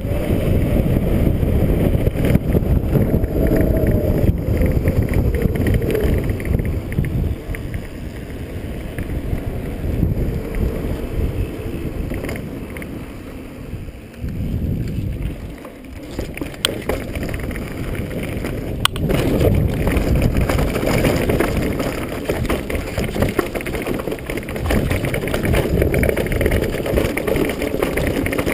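Mountain bike descending fast: wind buffeting the bike-mounted camera's microphone over rolling tyre rumble. It eases somewhat in the middle and picks up again, with two sharp clicks about two-thirds of the way through.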